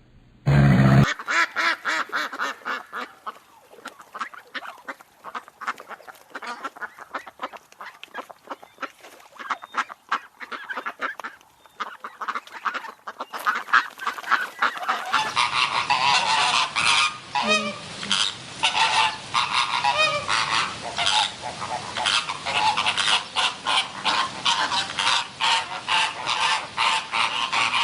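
Geese honking, many quick calls crowding over one another. About halfway through, a louder, fuller recording of the same kind of honking takes over.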